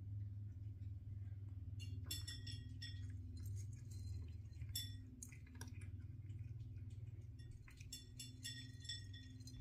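A cat eating dry kibble from a bowl: from about two seconds in, a run of small clinks, each with a short ringing tone, as the kibble and teeth knock against the bowl. A steady low hum runs underneath.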